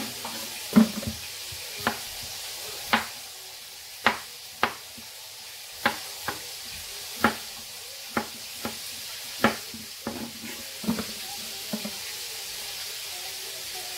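Kitchen knife cutting potatoes on a bamboo cutting board: about fifteen sharp knocks at an uneven pace, roughly one a second. Under them runs a steady sizzle of frying.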